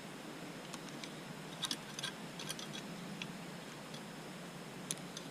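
A few light, irregular metallic clicks and ticks of a bicycle's rear derailleur and chain being handled and bent back into shape by hand, over a steady faint hiss.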